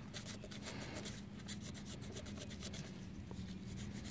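Faint, irregular scratchy rubbing of sandpaper on rusty metal, with a low steady hum beneath.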